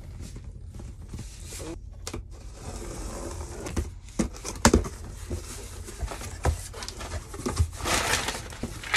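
Corrugated cardboard shipping box being opened by hand: flaps scraping and knocking with a few sharp clicks, and packing paper rustling and crinkling inside, loudest near the end.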